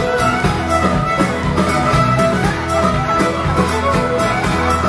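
A fiddle band playing a traditional tune live: several fiddles together over guitars and a drum kit keeping a steady beat, amplified through the stage speakers.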